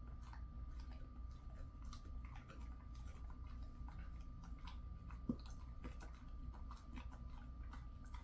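A Jindo dog chewing a dried chew treat: irregular wet crunches and clicks of teeth, with one sharper crack about five seconds in, over a steady low hum and a faint high whine.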